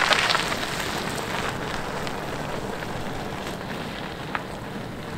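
Tyres of a loaded mountain bike rolling over a dirt and gravel track, a steady gritty noise that is loudest at first and fades as the bike moves off. One sharp click comes about four seconds in.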